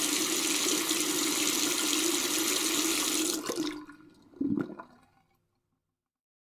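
Steady hiss of a finish being sprayed onto the wooden intarsia piece, cutting off about three and a half seconds in, followed about a second later by a single dull thump.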